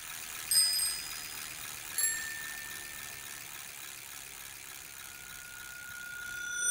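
Two rings of a bicycle bell, about a second and a half apart, over a soft hiss that slowly swells, with a steady high tone held through the last second or so.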